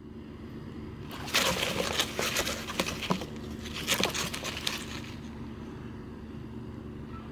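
Dry hay and fur nesting material rustling and crackling as baby rabbits wriggle and jump in their nest, for about four seconds starting a second in. A steady low hum runs underneath.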